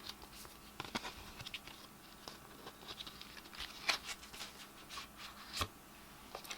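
Cardboard makeup packaging being handled: scattered light clicks, taps and rustles, the loudest ones about a second in, near four seconds and just past five and a half seconds.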